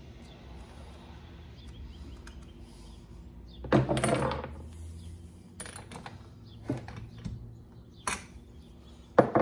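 Small metal tools and parts clinking and clattering as they are handled and set down on a workbench: one longer clatter about four seconds in, then a few separate sharp clicks and knocks.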